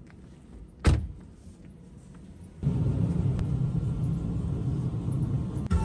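A car door shuts with one sharp thud about a second in. From about two and a half seconds a steady low whirring follows, which is the Tesla Model Y's power windows lowering as its light show starts, and a click comes near the end.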